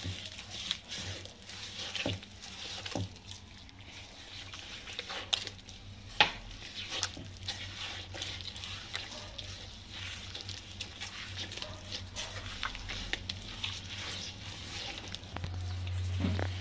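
Bare hand kneading and smearing butter creamed with sugar against a glazed terracotta dish: irregular squishing and rubbing with scattered sharp clicks. Oil is being worked in gradually so the butter stays smooth and does not go grainy.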